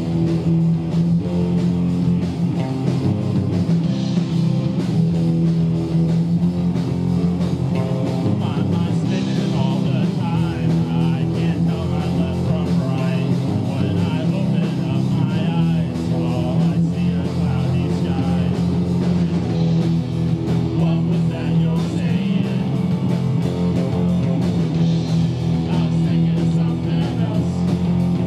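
Live rock band playing, electric guitars over a strong, steady low end.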